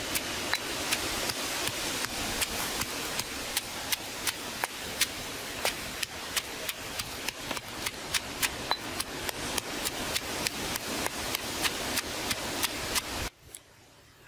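Stone pestle pounding red chillies and garlic in a stone mortar, a steady beat of sharp knocks about three a second over a steady hiss, grinding them into a chilli paste. The pounding stops abruptly about a second before the end.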